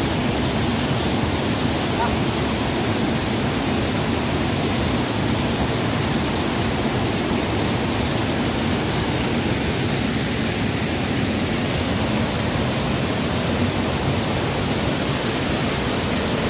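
Waterfall: a steady, dense rush of falling water, even and unbroken.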